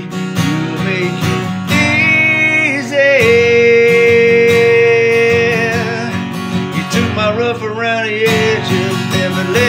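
Country song with acoustic guitar strumming under a singer's long, drawn-out notes. One note is held steady for about two and a half seconds in the middle.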